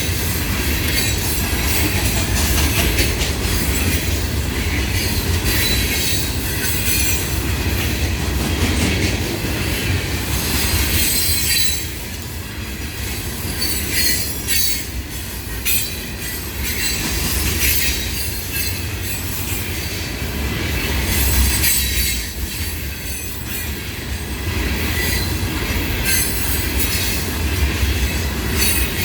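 Freight train of rock hoppers and gondola cars rolling past: steel wheels rumbling on the rails with a high screeching over it, the noise easing briefly twice.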